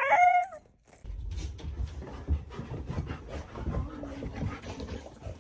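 A dog's gliding whine ends just at the start. After a brief pause comes a run of rustling and rubbing with many soft knocks as the dog moves about, with a short low drawn-out sound in the middle.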